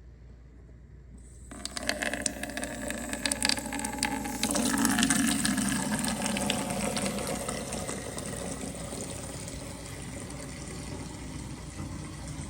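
Water running and filling a container. It starts suddenly with clicking and rattling for a few seconds, gets louder for a couple of seconds, then settles into a steady flow.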